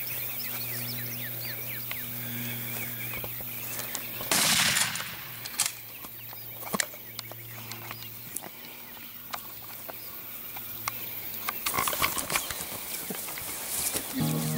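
A single rifle shot about four seconds in, the loudest sound, with a brief ringing tail. Birds chirp before it, and after it come scattered clicks and rustles of footsteps and gear in grass, over a steady low hum.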